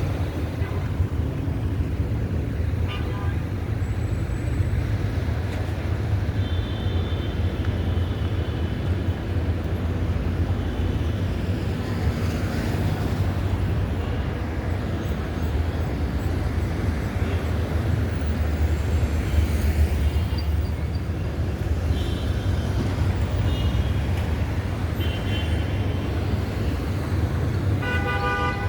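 Steady street traffic rumble, with short car-horn toots several times.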